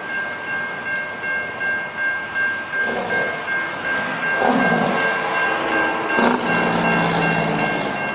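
Railroad crossing warning bell ringing steadily while the crossing gate comes down, joined from about six seconds in by a louder, steady train horn from an approaching train.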